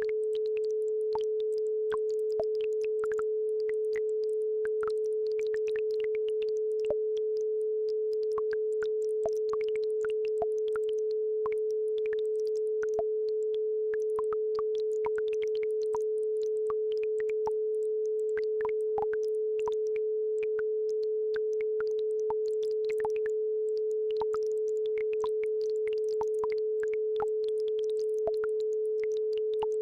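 A steady pure 432 Hz entrainment tone, held unbroken, over a faint babbling brook with irregular little water plinks and trickles.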